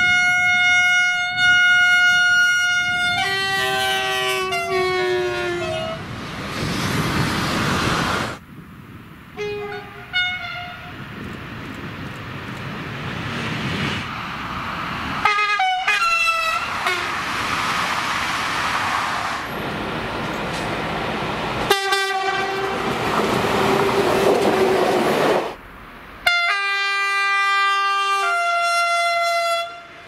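French electric trains sounding their two-tone horns one after another, each horn followed by the steady noise of the train passing at speed. Five horn signals in all, the first and last long and the middle ones short, with sudden cuts from one train to the next.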